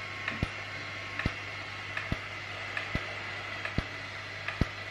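Handheld IPL hair-removal device firing in its automatic pulsing mode: a sharp click with each flash, about one every 0.8 seconds, six times, over a steady hum and a thin steady whine from the handset.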